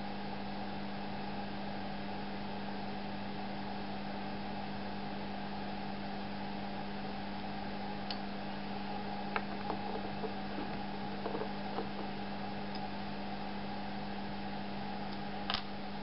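Steady background hum, with a few small clicks and light rattles of plastic parts being handled from about halfway, as the tiny viewfinder CRT is slid out of its deflection-yoke assembly. The loudest click comes near the end.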